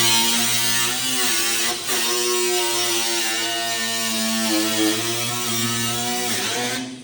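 Angle grinder running and cutting, its motor pitch wavering slightly under load over a hiss of cutting noise. The pitch dips about six seconds in, and the grinder cuts off just before the end.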